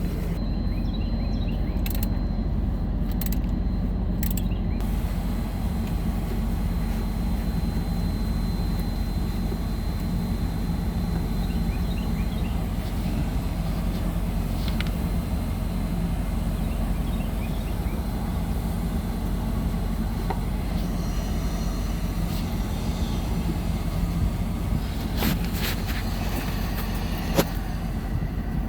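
Steady low rumble of a vehicle running, with a few short knocks near the end.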